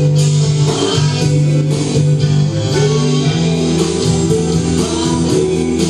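Live band playing a song: guitar chords and bass over a steady drum beat, recorded on a home camcorder.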